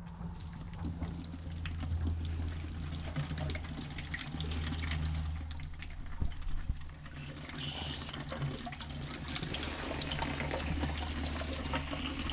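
Water running from a hose into a bucket or trough as it fills, a steady splashing rush, with a steady low hum underneath.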